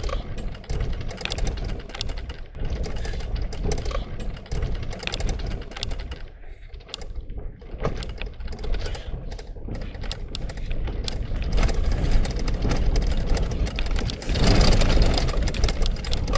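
Heard from inside a car on a rough unsealed dirt road: a steady low rumble from the tyres and suspension, with constant rattling and knocking as it jolts over the bumps. There is a louder stretch near the end.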